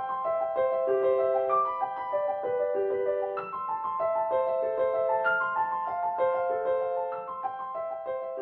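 Background music: a piano playing a melody of evenly paced single notes.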